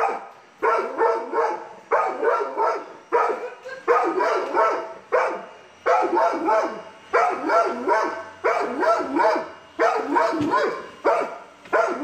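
A dog barking in quick high yips, in bouts of several barks about once a second.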